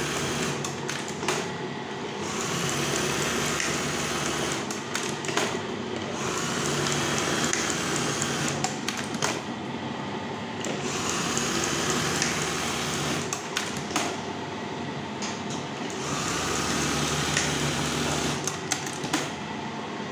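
Brother 814 buttonhole sewing machine running on test, its mechanism going in repeated stretches of a few seconds with sharp clicks where each stretch changes. It runs slowly on its 46 gear, with a cloth padding one part to damp its knocking.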